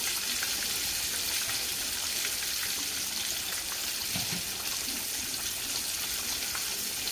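Whole catfish, coated in seasoned fish-fry breading, frying in a pan of hot oil: a steady sizzle.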